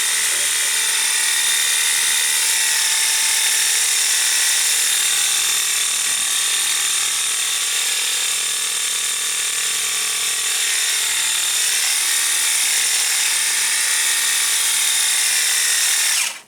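Cordless 20 V lithium-ion pressure washer running: a steady electric motor whine over a loud hiss, which cuts off suddenly near the end.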